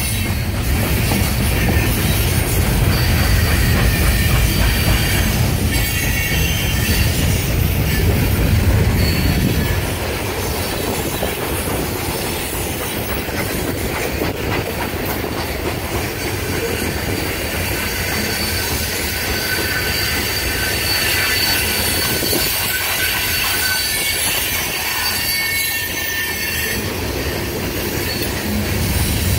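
Coal train hopper cars rolling past on steel rails: a steady rumble of wheels on track with thin, high wheel-squeal tones coming and going. The deep rumble drops off about ten seconds in.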